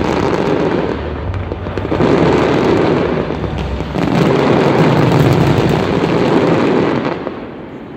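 Fireworks display: a dense, continuous barrage of bangs and crackling bursts, swelling about two seconds in and again about four seconds in, then dying away near the end.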